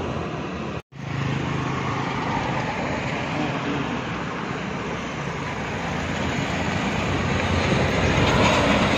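Highway traffic: motorcycles pass close while a KSRTC bus's diesel engine grows louder as it approaches, passing close near the end. The sound briefly cuts out a little under a second in.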